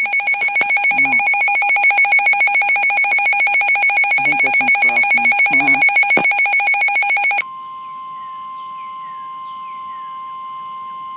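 Emergency Alert System attention signal: a loud, harsh, buzzing two-tone alarm that cuts off abruptly about seven seconds in. It is followed at once by the steady single-pitched warning alarm tone of NOAA Weather Radio.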